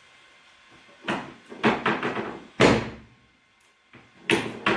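A series of heavy thumps, each with a short ring-out: four close together in the first half, then two more near the end.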